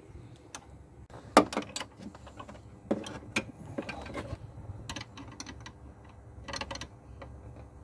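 Steel spanners clicking and clinking on a fuel-line union nut as it is worked onto the top of a car fuel filter and tightened: irregular metallic clicks in small clusters, the loudest about a second and a half in.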